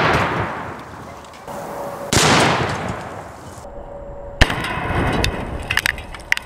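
Rifle shots at a buried Tannerite-filled PVC pipe, each sharp report trailing off in a long echo: one fading away at the start, another about two seconds in, then a sharp crack near the middle followed by several small clicks and pops. The pipe is not detonating fully underground, only puffing smoke at one end.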